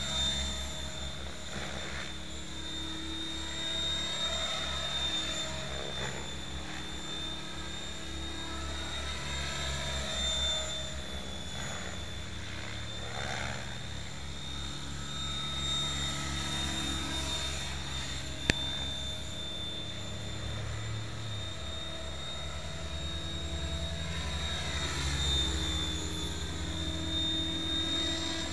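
Electric Mikado Logo 600 RC helicopter flying passes: the main rotor flutters, and the motor and rotor whine rises and falls in pitch as it speeds by and turns. A single sharp click about two-thirds of the way in.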